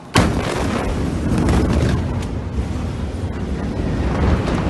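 Blast wave of the ammonium nitrate explosion at a port arriving: a sudden, very loud bang just after the start, followed by sustained loud rushing noise with scattered cracks and clatter as the shock hits the building and the phone is knocked about.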